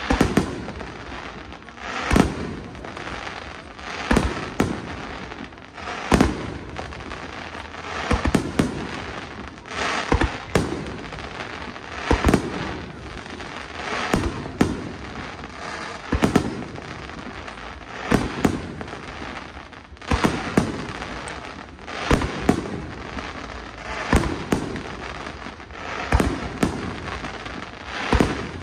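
Aerial firework shells bursting one after another in a fireworks finale, a sharp bang every second or two, with a continuous wash of noise between the bangs.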